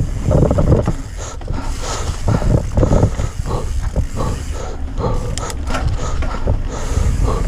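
Mountain bike ridden fast down a dirt singletrack: wind rumble on the mounted camera's microphone, tyre noise and irregular rattles and knocks from the bike over the rough trail.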